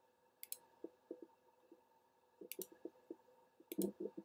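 Faint clicking of a computer mouse: a few separate sharp clicks, the last one doubled near the end, with softer knocks between them.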